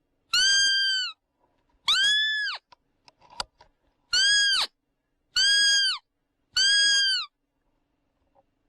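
Sika deer giving five high-pitched whistling calls about a second apart, each rising slightly and then falling away at the end.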